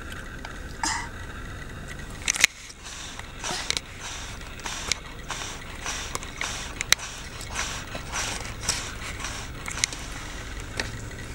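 Toddler chewing crunchy food: irregular short crackles and crunches, one to three a second, over a low steady rumble.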